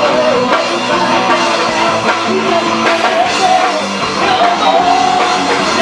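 Live band music: drum kit and guitar with a wavering melodic lead line over them.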